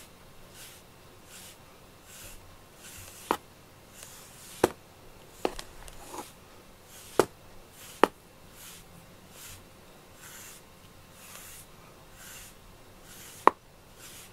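A pet grooming brush drawn through a cat's fur in soft, even swishes, a little more than one a second. A few sharp clicks stand out, louder than the strokes: about a third of the way in, then several close together, and once more near the end.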